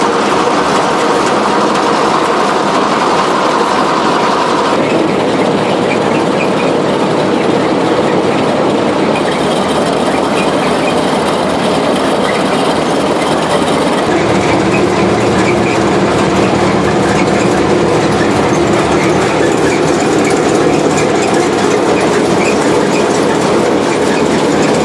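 Combine's threshing and shaker mechanism running with a new shaker shaft fitted: belts, pulleys and the shaking sieves and straw rack clatter steadily. The sound's tone changes about 5 seconds in and again about 14 seconds in.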